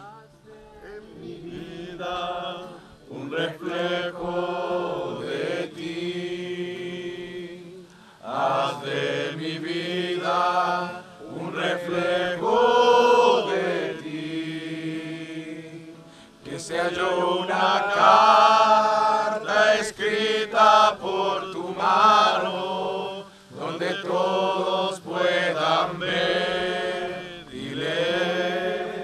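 A congregation singing a Spanish praise hymn together in unison. The sung lines last a few seconds each, with short breaks between them.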